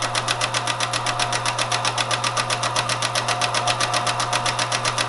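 Teletype Model 14 transmitter-distributor running, with a steady motor hum and an even, fast clatter of clicks. It is stepping punched 5-bit Baudot paper tape through its reader and transmitting it.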